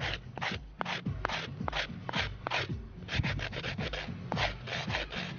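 Knife blade scraping down a wooden stick in quick repeated strokes, about two or three a second, shaving off fine wood filings.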